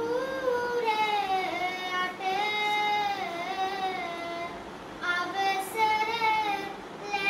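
A child's voice chanting Sinhala kavi bana verse: long drawn-out notes that bend slowly up and down, with a short pause for breath a little past the middle.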